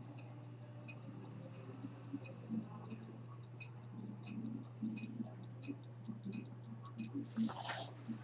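A century-old minute-repeater chronograph pocket watch ticking evenly, about five ticks a second, over a steady low hum, with a brief rustle near the end.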